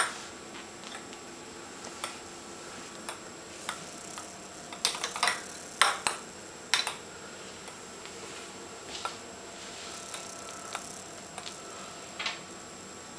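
Scattered light clicks and taps as a kitten bats a small toy about on a hardwood floor among chair legs, with a quick flurry of them near the middle.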